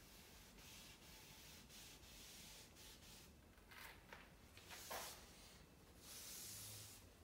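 Faint rubbing of a gloved hand working over walnut boards, with a few short scrapes about four to five seconds in.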